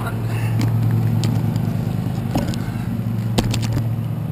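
Multicopter's electric motors and propellers running at low throttle while it sits on the ground, a steady low hum with a few light clicks.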